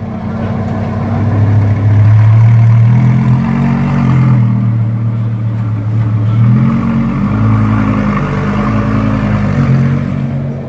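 Lamborghini supercar engine running loud and steady near idle, its pitch stepping up and down a few times with light throttle.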